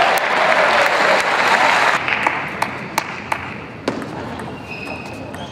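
Arena crowd applauding after a table tennis point, fading about two seconds in. Then a rally begins: a run of sharp clicks of the celluloid ball striking bats and table, with a short squeak near the end.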